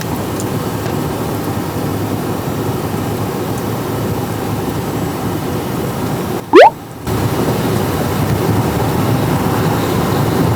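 Steady road noise of a moving car heard from inside. A little past the middle it drops out briefly for a loud, quick rising whistle, sweeping from low to high pitch in under half a second.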